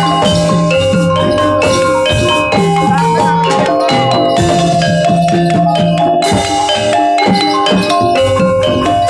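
Jaranan gamelan music played live: bronze metallophones ring out a repeating melody in struck notes over hand-drum strokes, steady and loud.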